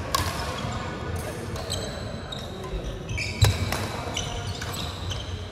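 Badminton rally: rackets striking the shuttlecock with sharp cracks, the loudest about three and a half seconds in, between short high squeaks of sports shoes on the wooden court floor.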